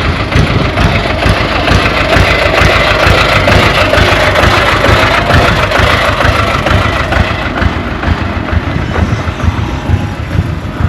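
Engine of heavy construction machinery running steadily, loudest a few seconds in and easing off toward the end.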